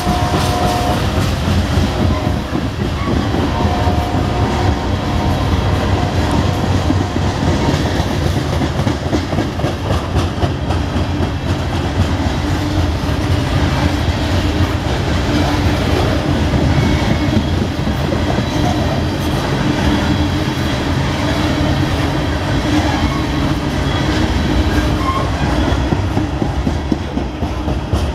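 Coal hopper cars of a freight train rolling past close by: a loud, steady rumble with the clickety-clack of wheels over the rail joints.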